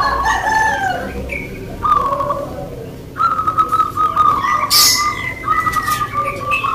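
Caged zebra doves (perkutut) singing: a few short falling coo notes, then from about three seconds in a long, fast staccato trill held on one pitch. A brief sharp high-pitched sound cuts in about five seconds in.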